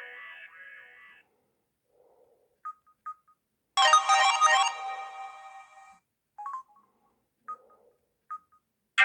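Samsung SGH-F480 mobile phone ringtones playing through the phone's speaker. One melody fades out in the first second. A short, bright chime-like ringtone sounds from near the middle for about two seconds, and short quiet beeps come between them.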